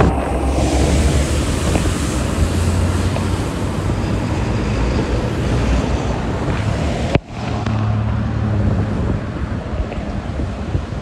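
Road traffic: a garbage truck's engine running low as it passes close by, with wind buffeting the microphone. About seven seconds in the sound cuts off sharply and resumes with more trucks and cars driving past.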